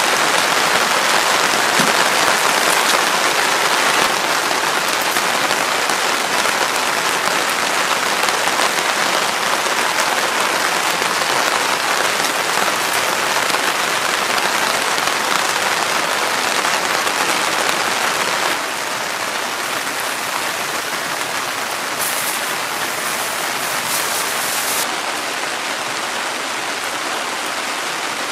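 Heavy rain falling on a tarp overhead: a dense, steady patter that eases slightly about two-thirds of the way through.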